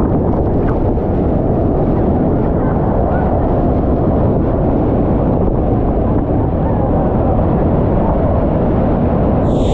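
Bridal Veil Falls pouring down onto the rocks at close range: a loud, steady rush of falling water, with wind and spray buffeting the microphone.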